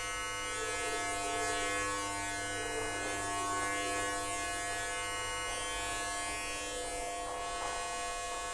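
Steady electrical buzzing drone made of several held tones at once, from an installation of wired lamps and household objects.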